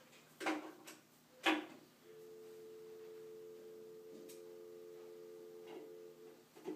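Two sharp knocks, then a steady, pure two-pitch tone held for about four seconds before it stops.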